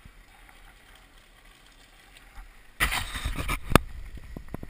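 Faint quiet background, then nearly three seconds in a sudden loud scraping rustle with sharp knocks right on the helmet-mounted GoPro camera's housing: the camera being handled.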